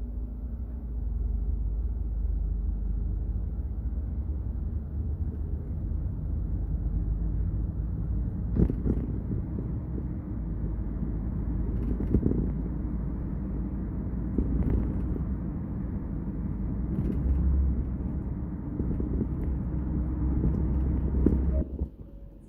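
Kia K5 sedan driving at highway speed: a loud, steady low rumble of engine and road noise, with the engine note rising in the first couple of seconds as it accelerates. A few sharp knocks come through every few seconds, and the rumble cuts off sharply near the end.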